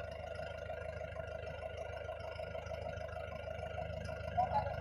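Heavy vehicle engine running at a steady idle, an even hum.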